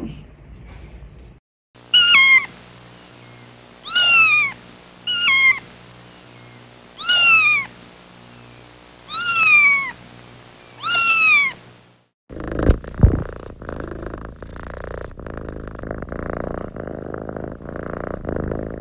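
A kitten meowing six times, each call falling in pitch, over a low steady rumble. About twelve seconds in this gives way to a rough, breathy noise with a sharp knock.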